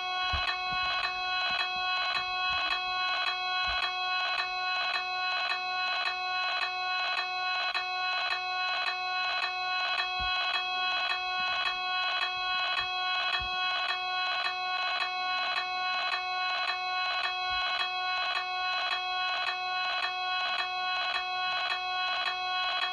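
Electronic alarm sounding continuously: a steady buzzing tone rich in overtones, pulsing rapidly and evenly without change, with a few faint low knocks under it.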